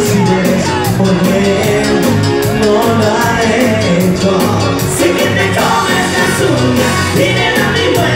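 Live Latin pop song played loud through the PA, with a steady drum beat and a man singing over it.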